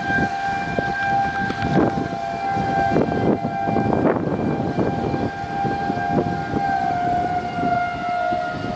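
Outdoor tornado warning siren sounding a steady wail, its pitch sagging slightly about seven seconds in, over rough, gusty wind noise on the microphone.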